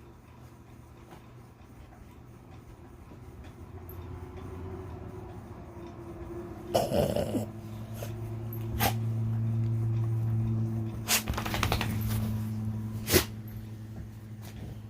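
A dog making a long, low, drawn-out growling grumble that builds and holds steady, with a few sharp knocks and clicks breaking through it.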